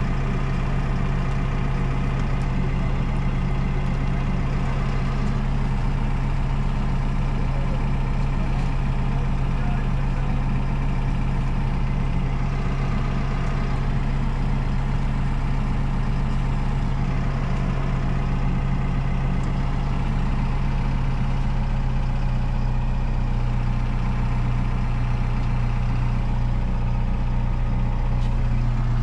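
Diesel engine of a Menzi Muck M335 walking excavator running steadily with a constant low hum, heard from inside the cab.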